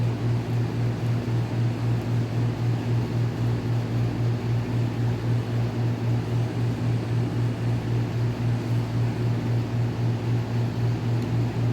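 Steady low mechanical hum with an even, rapid pulsing beat, from a motor or engine running without change.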